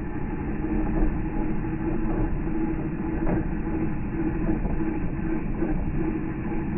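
A 12-volt DC gear motor in a homemade guitar pickup winder, spinning the bobbin steadily. The footage is slow motion, so the running motor is heard as a deep, steady rumble with a faint hum.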